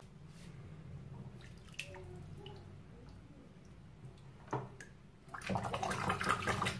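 Hands splashing and stirring water in a basin while washing parts, with a few small knocks. The splashing grows louder and busier about five and a half seconds in.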